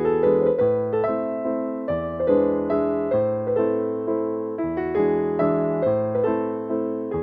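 Background piano music: an even run of notes over low chords, each note struck and then fading.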